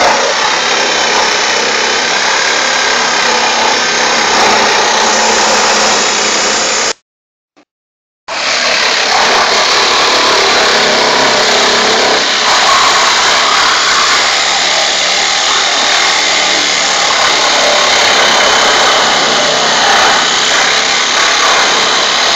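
Hand-held power tool running continuously, loud and steady; the sound drops out completely for about a second a third of the way in, then carries on the same.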